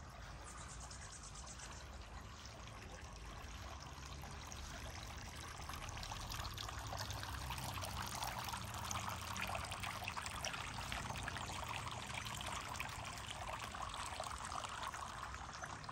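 Steady trickling, running water, a little louder from about six seconds in.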